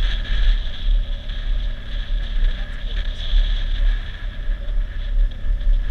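A vehicle's engine running steadily under load, a continuous low rumble with a steady higher drone above it, as it climbs a rough mountain dirt road.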